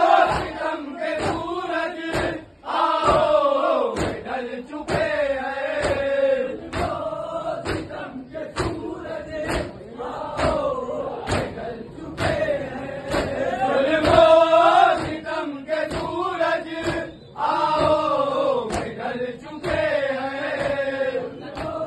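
A noha, a Shia mourning lament, chanted by a crowd of men's voices. Sharp slaps of palms beating on chests (matam) keep time about twice a second.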